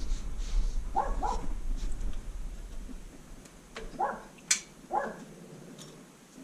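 A dog barking in short yelping barks: a quick pair about a second in, then two more about four and five seconds in. A sharp click falls between the last two.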